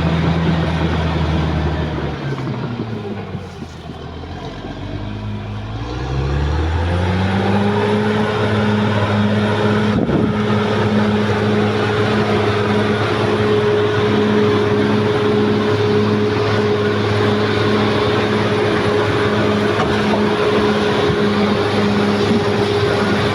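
Caterpillar D6R XL bulldozer's diesel engine running. It drops in pitch and level about two seconds in, then revs back up around six to seven seconds and holds a steady, higher working speed.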